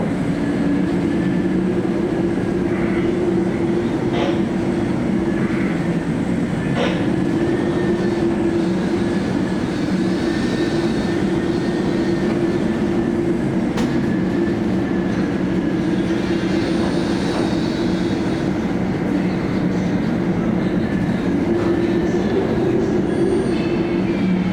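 Steady low drone of the ferry Maersk Anglia's engines and onboard machinery under a rushing noise, with a faint steady high whine and a few light knocks.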